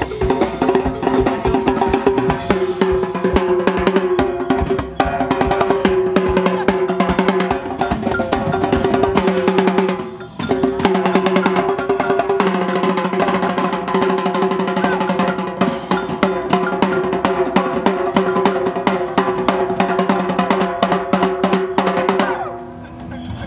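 Live percussion ensemble playing a fast, dense groove: hand drums, a drum played with sticks and a drum kit, over a held low note. The playing briefly drops out about ten seconds in and dies down near the end.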